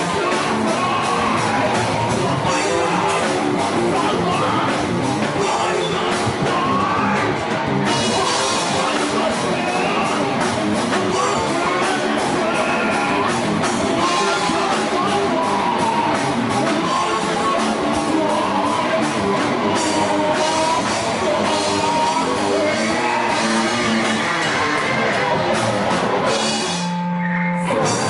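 Live rock band: a vocalist singing and shouting into a microphone over electric guitar and drums, with a short break near the end.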